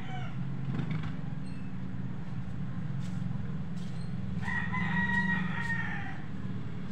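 A rooster crowing, one drawn-out call starting about four and a half seconds in and lasting about a second and a half, with the tail of an earlier crow just at the start. A steady low hum runs underneath.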